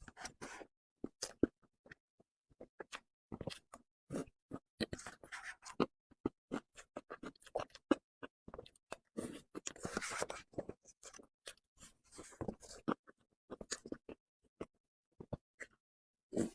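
Person eating a soft cream box cake, with irregular wet mouth clicks, lip smacks and soft chewing.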